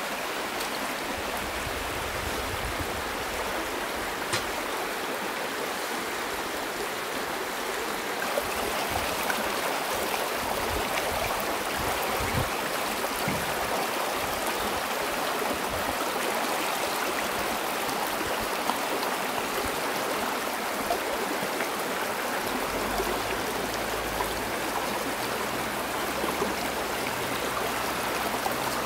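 Shallow rocky mountain stream rushing and splashing over stones, a steady water noise that grows a little louder about eight seconds in.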